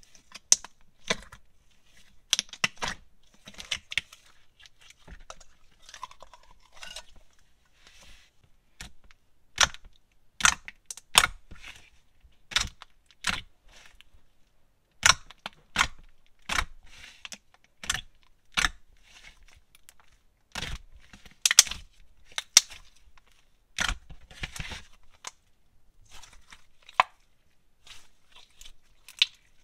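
Thick, juicy jelly slime studded with small clay bone and skeleton pieces being squeezed and stretched by hand, giving irregular sharp pops and clicks.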